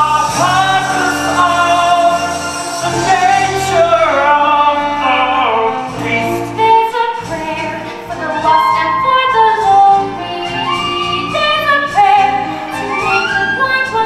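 Stage-musical song: a man and a woman singing over instrumental accompaniment, with long held notes.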